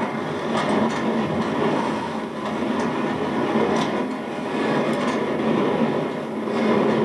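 Passenger train running, heard from inside the carriage: a steady rumble with a few faint clicks.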